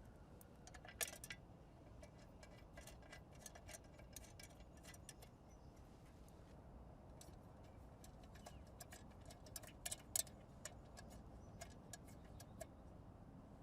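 Faint, irregular clicks and light metallic taps as the solenoid cover and its two bolts are refitted by hand on a cold planer, the sharpest clicks about a second in and near ten seconds.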